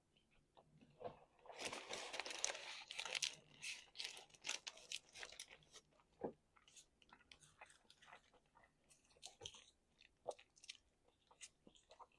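A person chewing and crunching food, with a dense run of crunchy bites for a few seconds from about a second and a half in, then slower, scattered chewing clicks.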